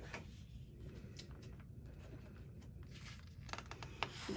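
Faint rustling and light ticks of a sheet of patterned scrapbook paper being handled and slid under the hand, with a few small clicks about a second and a half in and again about three and a half seconds in.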